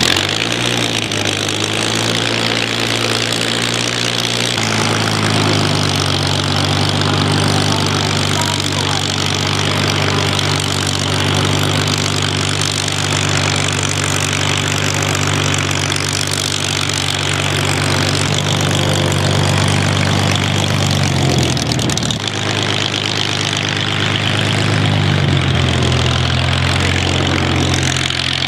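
Supermarine Spitfire's Rolls-Royce V12 piston engine running at idle just after start-up, unsteady for the first second before settling. The engine speed steps up about four seconds in, dips once later, then picks up again near the end.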